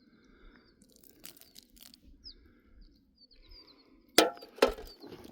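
Faint bird chirps over light rustling, then about four seconds in two sharp clanks as the shot aluminium beer cans are handled.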